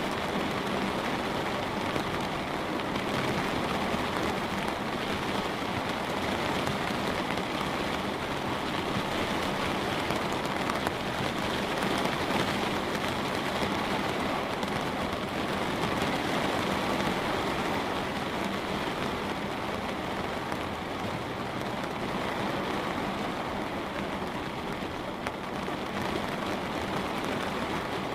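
Light rain falling steadily on a window, a continuous even patter of drops.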